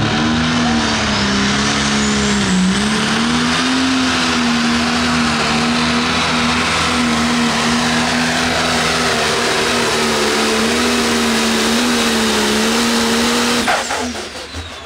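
Pro Stock pulling tractor's turbocharged diesel engine running flat out through a pull, its pitch holding steady with slight wavering. Near the end the engine note cuts off suddenly as the run ends.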